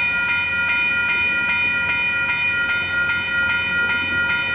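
Passenger train's air horn sounding one long steady blast, several notes held together as a chord, loud and unbroken.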